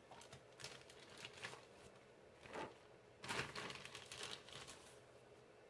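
Faint crinkling rustle of packaging as skeins of yarn are pulled out and handled, a few soft rustles, the clearest about two and a half and three and a half seconds in.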